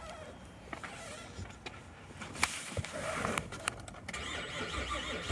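Starter cranking the 3.6L V6 of a 2011 Chevy Traverse on a jump box, whirring without the engine catching, on a hard-starting engine.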